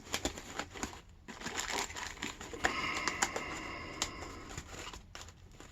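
Padlocks and packaging being handled: rustling and crinkling with many small clicks and knocks.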